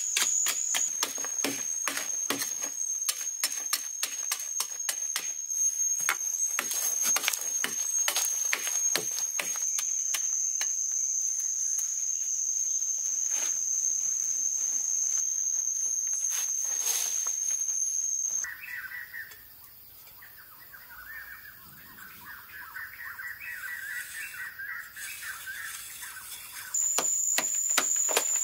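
A metal blade repeatedly chopping and scraping into hard dry earth, in quick irregular strikes, over a steady high-pitched drone. About two-thirds of the way in the strikes and drone stop and quieter bird chirping is heard, then the blade strikes and drone return near the end.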